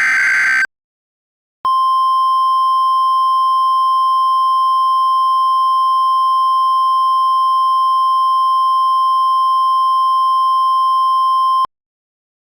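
The tail of a harsh, buzzy SAME digital data burst from an Emergency Alert System header. About a second later comes the steady single-pitch NOAA Weather Radio alert tone of about 1050 Hz, held for about ten seconds and cut off abruptly. The tone signals that an emergency warning message follows.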